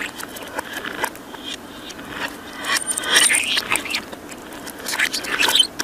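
Budgerigar chatter played backwards: a busy run of scratchy clicks, chirps and short whistled glides, with a brief thin high whistle about three seconds in.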